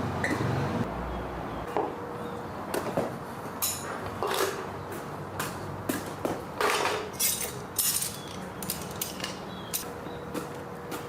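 Irregular metallic clinks, knocks and short scrapes of hand tools and bicycle parts being worked on, with a couple of longer scraping sounds in the middle.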